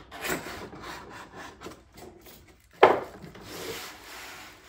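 Cardboard box and packing inserts scraping and rubbing as a new light fixture is unpacked, with one sharp knock a little under three seconds in.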